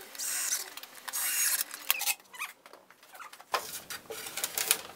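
Sliding doors of a wooden cabinet scraping along their grooves in two short strokes, then light wooden knocks and clicks as the cabinet is handled.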